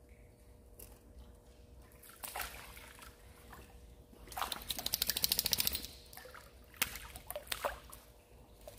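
A hooked crucian carp splashing at the water's surface as it is played in. A few single splashes, then a burst of rapid thrashing splashes in the middle lasting about a second and a half, then two more splashes near the end.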